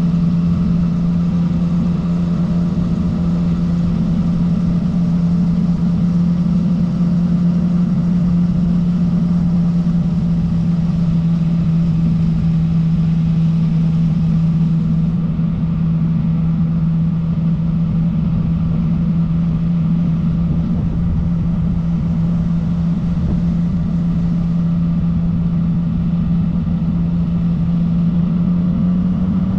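Yamaha MT-09 Tracer's three-cylinder engine running at steady, unchanging revs as the motorcycle cruises at a constant speed, with wind and road noise over it.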